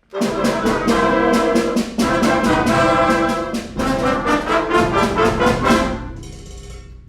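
Concert band playing a fast galop, brass to the fore, over a steady beat of about four short strokes a second. It starts abruptly and dies away near the end.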